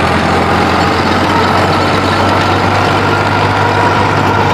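New Holland tractor's diesel engine running hard and steady under the heavy load of an 8-foot rotavator dragged through deep, loose soil, with a slight rise in pitch partway through.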